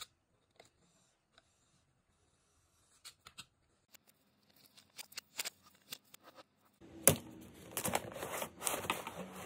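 Paper pattern sheets handled on a cutting mat: scattered light taps and rustles, with shuffling and sliding of the sheets. About seven seconds in, a louder stretch of dense rustling and crinkling begins as a sheet of leather is handled.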